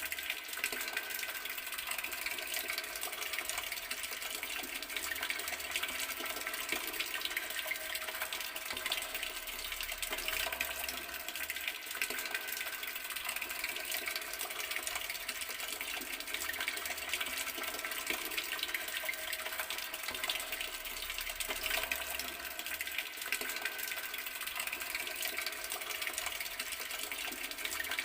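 Garden water tap running, a steady stream of water splashing without a break.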